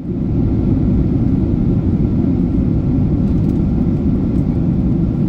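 Steady low rumble of cabin noise inside a Boeing 777-200ER in flight: engine and airflow noise heard from a window seat, fading in at the very start.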